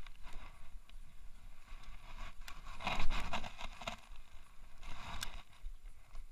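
Baitcasting rod and reel being worked through a cast and retrieve: bursts of scraping and whirring, the loudest about three seconds in and a shorter one about five seconds in.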